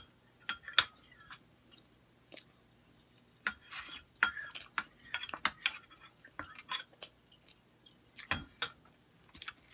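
Metal utensil clinking and scraping against a ceramic bowl, with close-up chewing and mouth sounds in between: a string of short, sharp clicks, densest in the middle. A faint steady low hum runs underneath.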